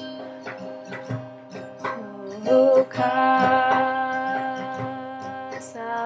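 A woman singing over a plucked guitar; about halfway through she holds one long note.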